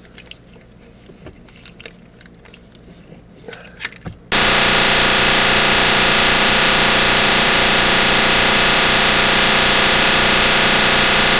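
Faint clinks of tools and bolts, then about four seconds in a power ratchet starts abruptly and runs loud and steady for about seven seconds, driving in the new starter motor's mounting bolts, before cutting off.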